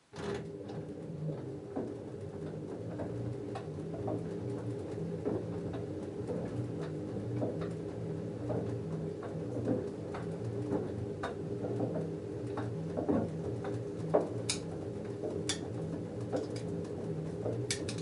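LG F10A8HDS5 front-loader's direct-drive motor turning the drum in a wash cycle: a steady hum with a pulsing low tone, while the denim load tumbles and sloshes in the water with scattered clicks and knocks.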